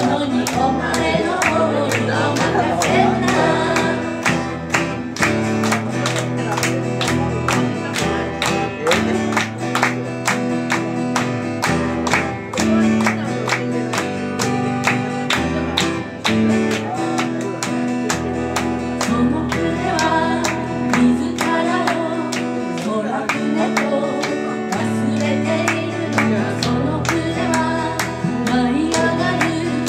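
A woman sings live, accompanying herself on a steadily strummed acoustic guitar; her voice comes in phrases over the continuous strumming.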